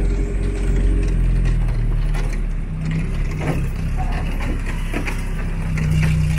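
Vehicle engine running at low speed with a steady low drone, a higher engine note coming in about halfway through, and scattered knocks and rattles over it.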